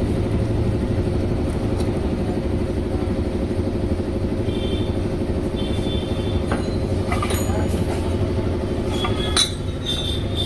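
A vehicle engine running steadily in the background, with a few light metallic clinks of hand tools on engine parts partway through.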